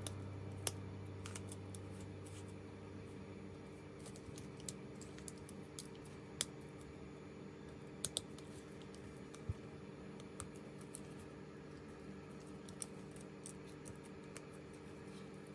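Small sharp clicks and taps, a dozen or so at irregular intervals, from tools and small parts being handled during a phone repair, over a faint steady hum.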